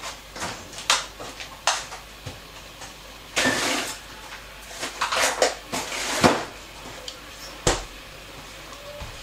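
Tellinas (wedge clams) cooking in a lidded frying pan: irregular short bursts of sizzling and sharp clicks and pops as the heat opens the shells.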